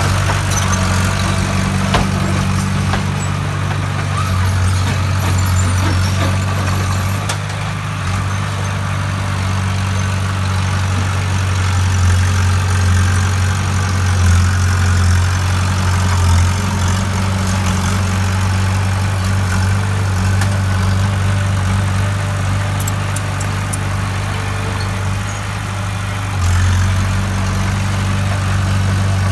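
Bulldozer's diesel engine running steadily with a deep hum as it moves dirt, its level shifting slightly as the load changes.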